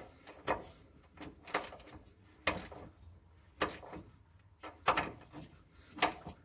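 Socket ratchet worked back and forth, tightening a bolt on a car's rear subframe brace: six short bursts of ratchet clicking about a second apart, one on each stroke of the handle.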